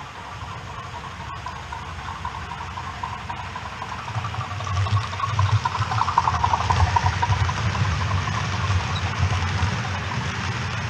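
OO gauge model train running past close by: a steady rumble of motor and wheels on the track that grows about four seconds in and is loudest a couple of seconds later as it passes.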